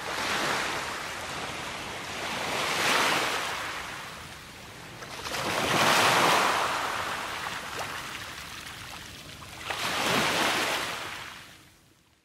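Waves washing in: a rushing noise that swells and falls away four times, then fades out near the end.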